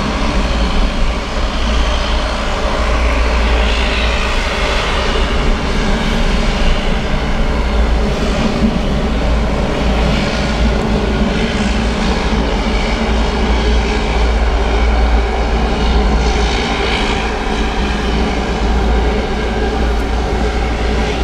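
ATR 72 turboprop airliner's twin engines and propellers running, a steady drone with several steady tones held above a deep hum.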